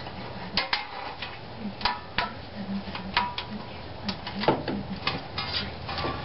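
Irregular light metallic clicks and clinks, a dozen or so, some ringing briefly: metal parts of a wheel hub and its ABS speed sensor being handled and fitted against the steering knuckle.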